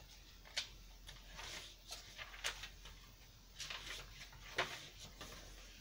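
Paper and cardstock pages of a handmade junk journal being turned by hand: a series of faint rustles and flicks, the sharpest about half a second in, at two and a half seconds and near the end.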